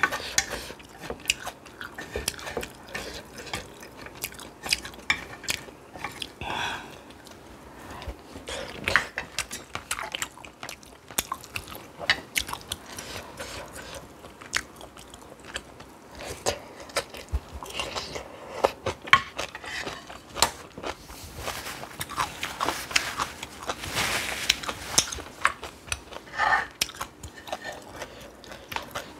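A person eating close to the microphone: chewing and crunching bites of spicy stir-fried noodles and kimchi, with many short sharp mouth clicks and smacks at an irregular pace.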